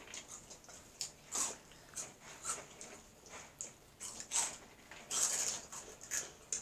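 Crunchy spicy corn snacks (Hot Fries and Flamin' Hot Cheetos Puffs) being chewed: a run of irregular, crisp crunches, coming thickest about five seconds in.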